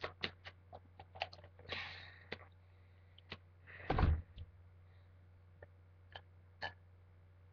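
A person's mouth and throat noises: a quick string of small clicks and swallows, a short breathy hiss, then one louder, deeper throat sound about four seconds in, as she works up to a burp.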